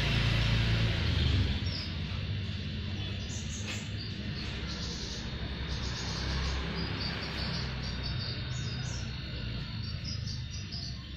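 Hermetic refrigerator compressor, rigged as an air pump, running with a steady low hum while inflating a bicycle tyre. Faint high chirping sits over it.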